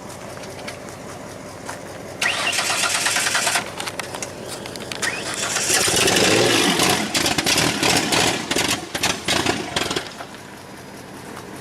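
The 2000 Ford Explorer's engine running and being revved in bursts: a short loud burst about two seconds in, then a longer, louder, uneven stretch in the middle before it drops back to a steady run near the end.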